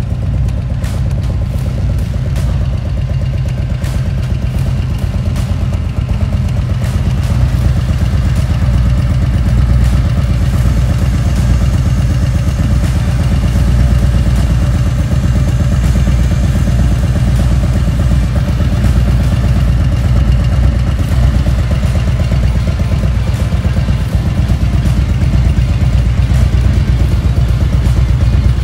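Harley-Davidson CVO Street Glide's Milwaukee-Eight 117 V-twin idling steadily with a deep, even note.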